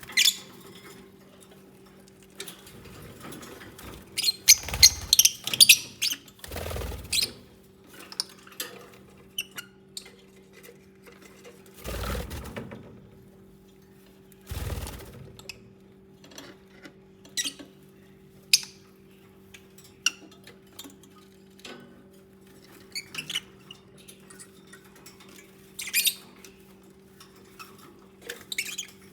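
Lovebirds moving about, with scattered scratches and taps, short squeaky chirps and a few heavier rustling bumps. A steady low hum runs underneath.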